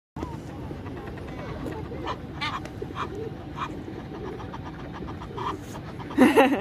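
Waterfowl giving short calls at the lake edge, several times a second or so apart, over outdoor background noise, with a sudden loud cry near the end.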